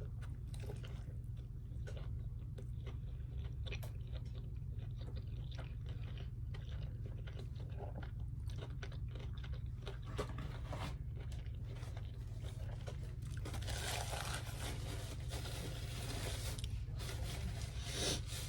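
Close-miked eating: biting and chewing a Chick-fil-A chicken sandwich, with many short crunches and mouth clicks and a denser stretch of crunching about 13 seconds in. A steady low hum runs underneath.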